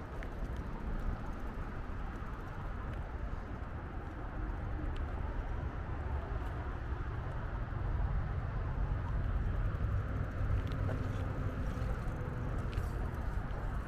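Low, steady rumble of wind and tyre noise from riding a bicycle, buffeting the camera's microphone, louder from about eight seconds in.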